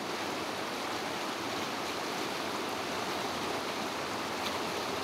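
A shallow, fast mountain river running over rocks in riffles, heard as a steady wash of water noise.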